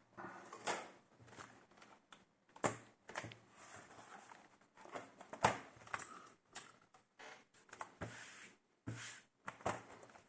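Irregular light clicks, knocks and rustling of things being handled on a desk, a dozen or so short sounds spaced unevenly.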